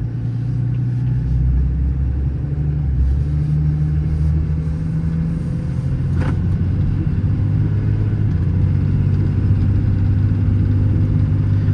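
Cummins 6.7-litre inline-six turbo diesel of a Ram 5500 running, heard from inside the cab, a steady low drone whose pitch shifts a little about three to five seconds in. One light click about six seconds in.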